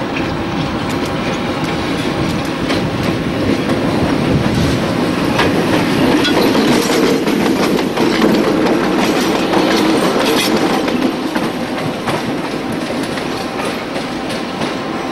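A set of three NZR EO class electric locomotives running past at close range, their wheels clicking over rail joints and pointwork. The sound builds to its loudest about halfway through as they pass, then eases off.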